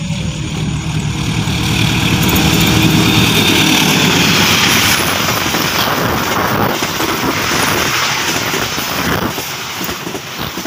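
Diesel locomotive hauling a passenger express past at speed: its engine swells to the loudest point a few seconds in as it goes by. Then the coaches roll past with a dense rumble and irregular knocks from the wheels on the rails.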